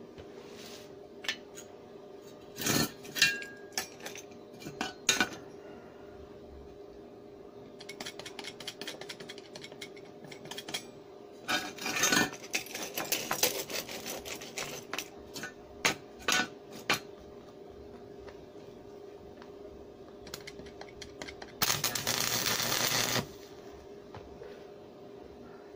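Stick welding steel: metal pieces clink and knock as they are set in place, then intermittent crackling, and about 22 s in a loud electric-arc crackle lasting about a second and a half as a weld is laid. A steady low hum runs underneath.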